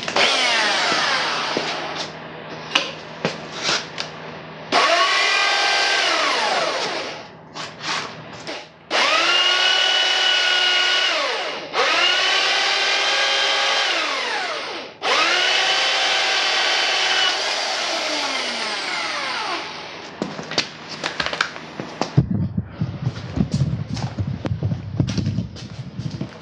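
Power drill turning a hole saw through a carbon fiber dashboard panel, in four runs of a few seconds each. The motor whine rises as each run starts and falls away as it stops, with short clicks and knocks between runs. Music with a beat comes in near the end.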